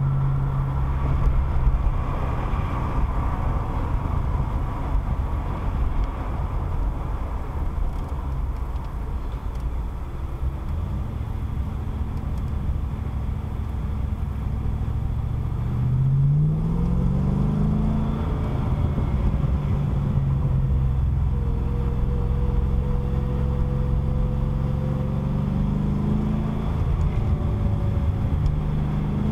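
A car's engine and road noise heard from inside the cabin while driving, with a low rumble throughout. The engine pitch rises as the car accelerates about halfway through, and again near the end.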